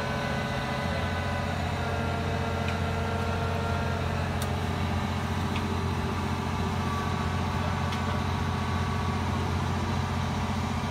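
Liebherr LR1300 crawler crane's diesel engine running steadily under load while it hoists the excavator on its lifting tray. A low, even drone that strengthens slightly about a second in.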